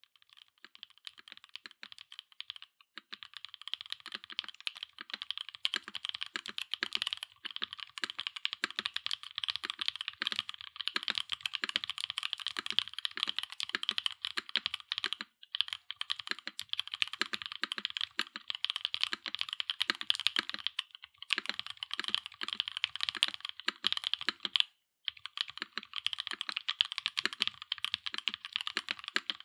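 Fast, continuous typing on a Bauer Lite gasket-mount mechanical keyboard with Gateron EF Chedda linear switches, an aluminium plate, no foam and PBT/ABS double-shot keycaps: a dense stream of keystroke clacks. It starts sparse for the first few seconds and has a couple of brief pauses later on.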